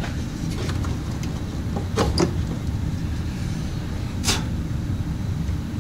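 Plastic electrical connector block being handled and fitted: a short cluster of sharp clicks about two seconds in and one more sharp click just after four seconds, over a steady low rumble.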